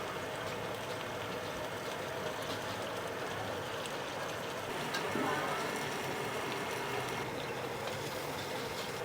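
Batter frying in hot oil on a flat pan for hoy tod, crispy oyster omelette: a steady sizzle with a few faint clicks.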